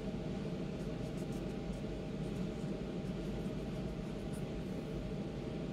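Steady low room hum, with faint light scratchy rubbing of a paper towel wetted with nail polish remover against fingernails.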